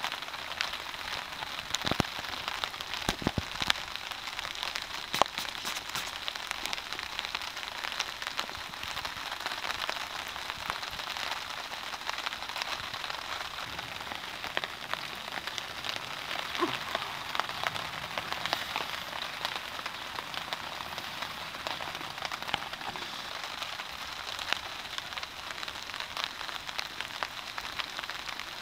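Steady rain pattering on a nylon MTP basha tarp overhead, heard from underneath: an even hiss with many sharp drop taps, a few louder ones in the first several seconds.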